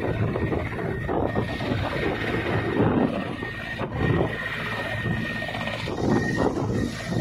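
Mi-17 helicopter running on the ground: a steady high turbine whine over a low engine and rotor hum, with irregular rushing noise around them.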